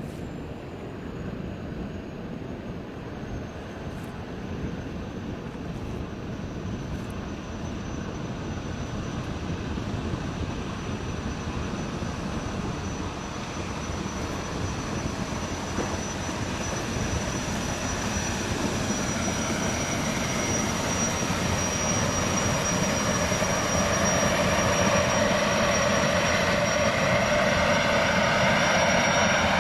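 Engine running with a thin high steady whine over a noisy rumble, growing steadily louder throughout as the craft comes closer.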